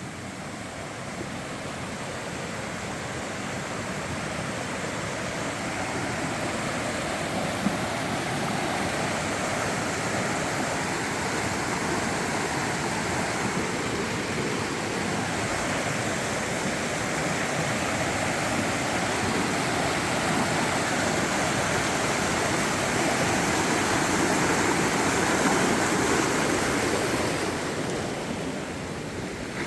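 A fast-flowing mountain river rushing steadily, gradually growing louder and then easing off near the end.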